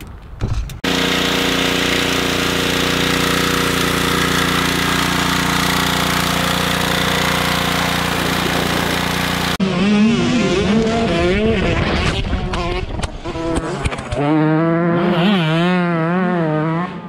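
Gasoline pressure washer running steadily, its small engine humming under the hiss of the spray jet, until a sudden cut about nine and a half seconds in. After it comes a warbling, voice-like sound that wavers up and down in pitch.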